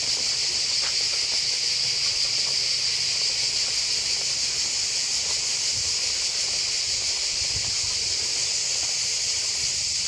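A chorus of cicadas singing: a continuous high-pitched buzz that holds steady throughout.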